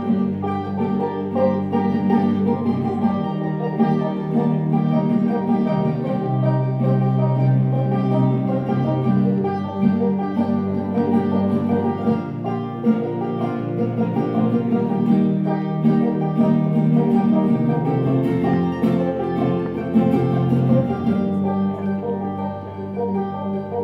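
Banjo and mandolin playing an instrumental tune together, a continuous run of plucked notes.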